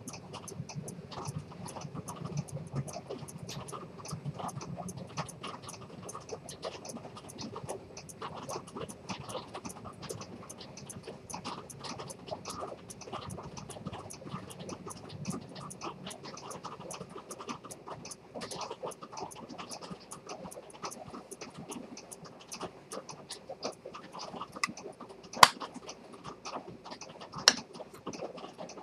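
Antique Dent fusee pocket watch with a detent (chronometer) escapement ticking close up, fast and even. Two sharp clicks near the end as the watch is handled and lifted off its stand.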